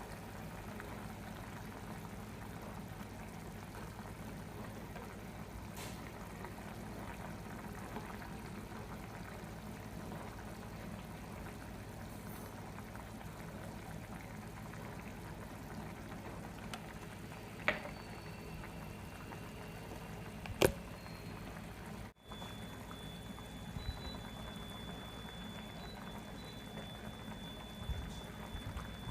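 Liquid bubbling steadily in a cooking pot, with two short sharp knocks a few seconds apart past the middle.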